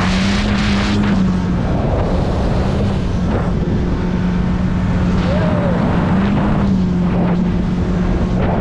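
Ski boat's motor running at speed with a steady drone that rises briefly in pitch twice, about half a second in and again about six seconds in, over a constant rush of wind and water.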